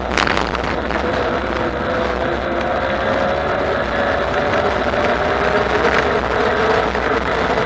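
Bafang BBSHD mid-drive e-bike motor whining under way, its pitch sagging slightly and then climbing again, over a steady rush of wind and road noise.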